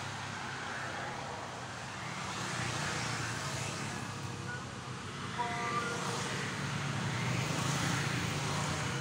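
Distant road traffic: a steady low rumble under an even background hiss, with a few faint short tones about halfway through.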